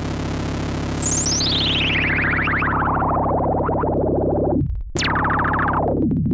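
Moog Werkstatt-01 analog synthesizer sounding a dense buzzy tone over a steady low drone, then a pitch that sweeps down from very high to low over about four seconds as its knobs are turned. After a brief cut it jumps back up and sweeps down again.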